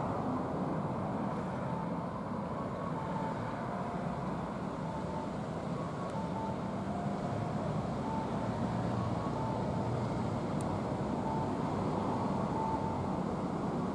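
Steady outdoor background rumble of distant road traffic, with faint short beeps now and then.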